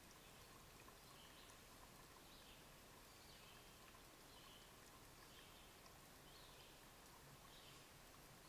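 Near silence: a faint hiss, with a distant songbird singing short, high phrases about once a second.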